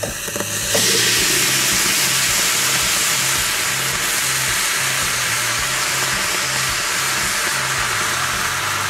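Red-hot metal ball dropped into a glass of gummy worms, with a short knock about a second in as it settles. The candy then sizzles and hisses loudly and steadily as it melts and burns against the hot metal.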